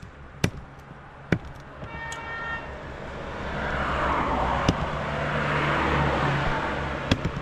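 A short vehicle horn toot about two seconds in, then a motor vehicle passing close by, its noise swelling and then easing off. A few sharp knocks stand out, one each near the start, in the middle and near the end.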